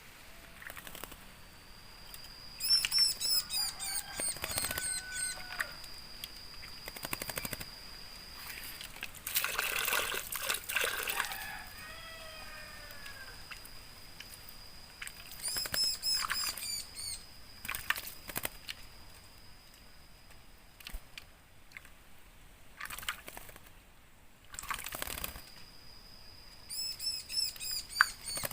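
Javan myna (jalak kebo) bathing: repeated bursts of wing-flapping and splashing in water, with a few short chirps between them. A steady high-pitched tone runs in the background and breaks off now and then.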